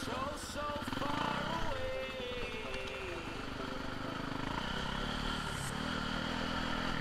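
Dirt bike engine running steadily at low revs, with people talking over it.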